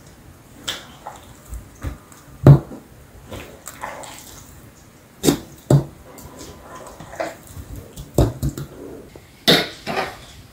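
Whole strawberries in their juice being poured from a bowl into a large glass jar: a run of irregular wet plops and slides, the loudest about two and a half seconds in.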